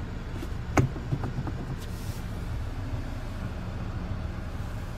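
Gear lever of a five-speed manual gearbox shifted, with one sharp click about a second in and a few softer clicks after it, over a steady low hum.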